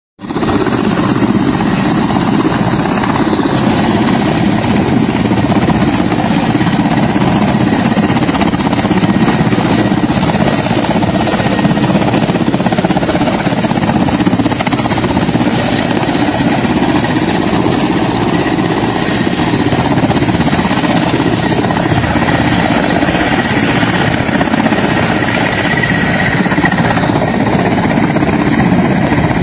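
Steady, loud noise of a hovering Mi-17-type transport helicopter's rotor and turbines, mixed with the rush of fast-flowing floodwater.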